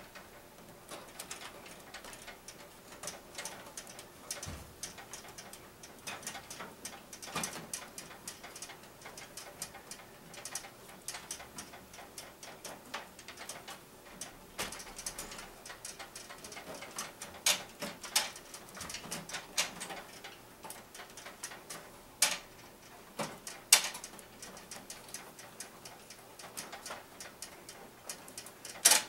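Irregular light clicks, taps and rustles of hands working flexible water-cooling tubing through a computer case, a few knocks louder than the rest, with cloth brushing close by.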